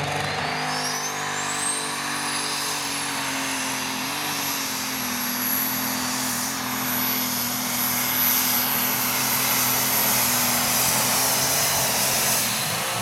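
Super Stock pulling tractor's multi-turbocharged diesel engine running flat out through a pull. A high turbo whistle rises over the first couple of seconds, then holds high and steady over the engine.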